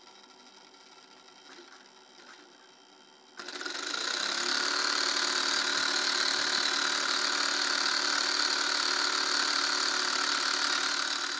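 Homemade steam-engine generator running, its small DC motor spinning a CD flywheel: a steady mechanical whir that starts suddenly about three and a half seconds in and fades near the end.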